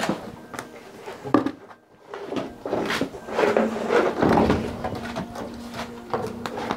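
A cow shifting and being handled in a shed, held by a chain at a wooden rail: a couple of sharp knocks, then a run of clunks, rustling and shuffling.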